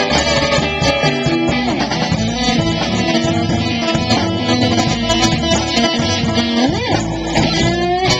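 Two electric guitars, a solid-body and a hollow-body, playing live through amplifiers in an instrumental break of a 1950s rock-and-roll number, with a sliding note about seven seconds in.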